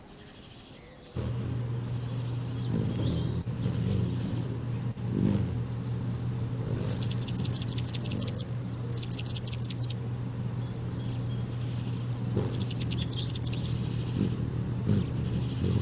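Three bursts of high, rapid, buzzy trilled chittering, typical of hummingbirds squabbling at a feeder, over a steady low hum that starts about a second in.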